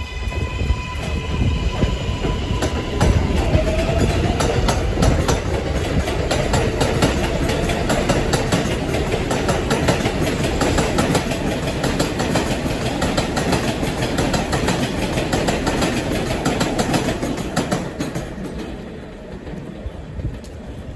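An R188 7 subway train runs past on the elevated steel structure and away. A motor whine is heard in the first few seconds, then a dense clatter of wheels over the rail joints with a heavy rumble that fades as the train recedes near the end.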